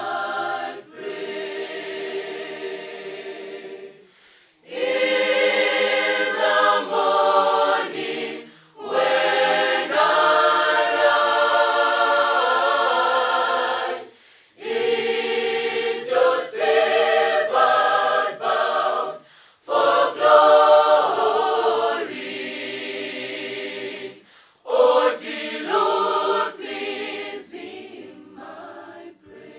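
A choir singing, in phrases a few seconds long with short breaks between them.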